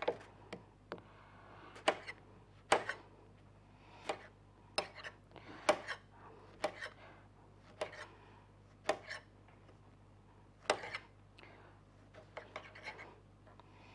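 Kitchen knife slicing an orange on a cutting board, the blade knocking the board in short, sharp taps at an uneven pace, roughly one a second, with a quick cluster near the end.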